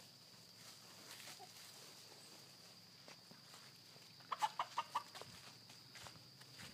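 A hen clucking: a quick run of about five short clucks around four and a half seconds in.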